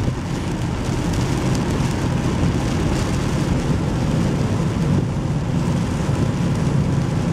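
Steady rumble of a car driving in heavy rain, heard from inside the cabin, with the hiss of rain and wet road over it.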